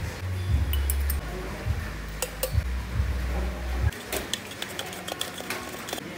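Metal utensils clinking: a spoon knocking and stirring against a stainless steel cup and glassware. A few separate clinks come first, then a quick run of them in the last two seconds. Under them is a low hum that stops about four seconds in.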